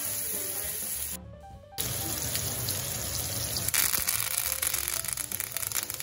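Seasoned ribeye steak sizzling in hot oil in a cast iron skillet, with spattering crackles growing thicker from about two-thirds in, under background music. The sound drops away briefly about a second in.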